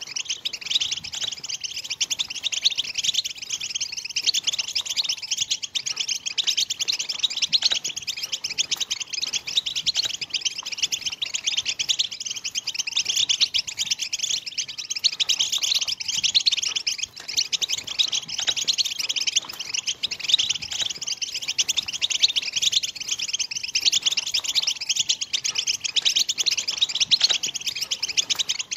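European (Moroccan) goldfinches giving their rapid 'tbtib' chattering call, a dense, unbroken twitter of short high notes.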